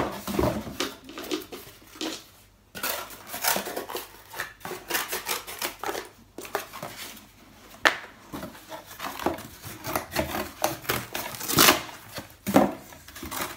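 Scissors cutting through corrugated cardboard boxes: irregular crunching snips mixed with scraping and rustling as the cardboard is flexed and turned, with a sharp snap about eight seconds in and a louder crunch near the end.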